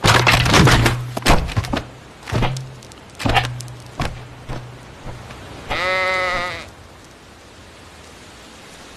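A run of knocks and thumps, loudest in the first second and a half, then a single bleat about a second long with a wavering pitch, a little past the middle.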